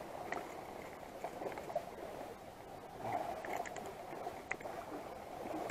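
A steady wash of water noise with a few faint clicks and knocks scattered through it.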